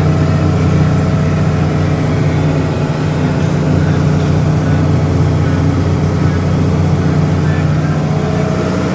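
Tractor diesel engine running steadily while pulling a manure spreader, heard from inside the cab.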